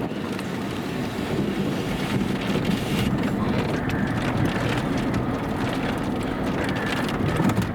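Strong tornado-driven wind buffeting the microphone in a steady, heavy low rumble, with scattered crackles.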